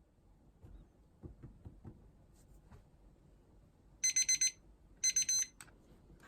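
An electronic alarm beeping twice in short groups of about four quick high beeps, a second apart, after some faint tapping and handling sounds.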